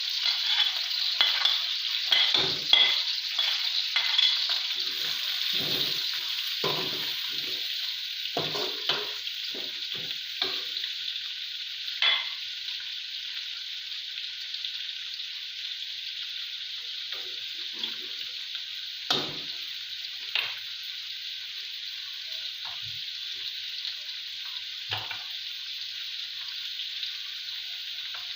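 Chopped onions sizzling and frying in hot oil in a kadhai, stirred with a spoon that knocks and scrapes against the pan. The stirring knocks come thick and fast for the first ten seconds or so, then only now and then, while the steady sizzle goes on.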